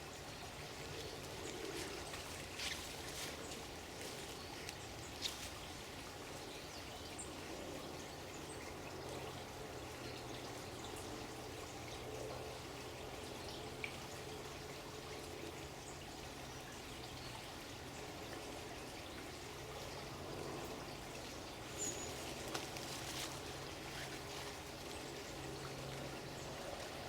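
Water running and trickling steadily, like a small stream, with a few brief sharp clicks or chirps here and there.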